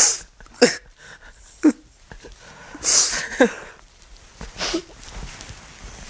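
A young man sobbing: about half a dozen sharp sniffs and gasping breaths, some breaking into short whimpering catches of the voice.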